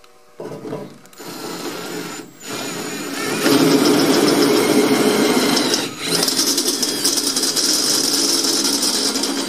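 Cordless drill spinning a step drill bit through sheet metal to enlarge a hole. The motor starts in short bursts, then runs steadily as the bit cuts, getting louder about three and a half seconds in, with a brief pause about six seconds in.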